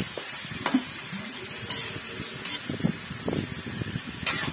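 Metal spatula scraping and clinking against a metal wok while stirring cubed raw chicken in hot oil, about five sharp scrapes over a steady sizzle of frying.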